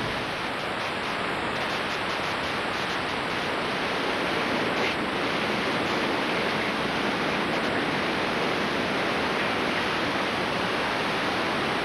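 Steady static hiss of video snow on an old VHS tape.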